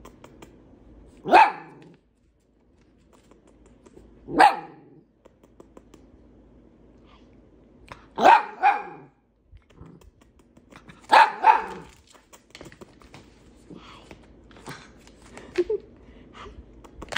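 Miniature schnauzer puppy barking: six short, sharp barks, first two single ones a few seconds apart, then two quick pairs.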